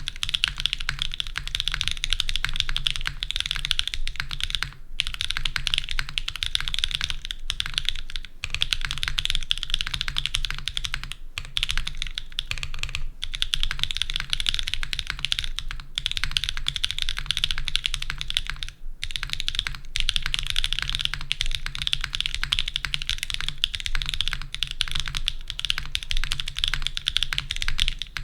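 Fast, continuous typing on a Geonworks Frog Mini mechanical keyboard with Mode Tomorrow tactile switches and an anodized aluminium case: a dense run of key clacks, with a few brief pauses.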